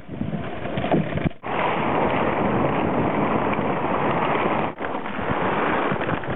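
Wind buffeting the microphone over the wash of waves on the open sea, steady and fairly loud, breaking off sharply twice, about a second and a half in and about five seconds in.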